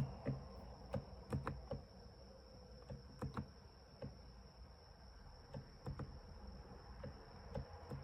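Mechanical keyboard with low-noise tactile 'icicle' (고드름축) switches being typed on at an uneven, unhurried pace: soft, muted keystrokes clicking one at a time or in quick pairs.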